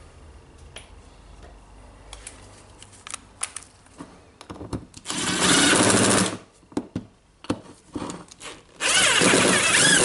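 Cordless driver spinning screws into a rotary hammer's gear housing: two short runs of about a second each, one midway and one at the end, with light clicks of parts being handled before and between them.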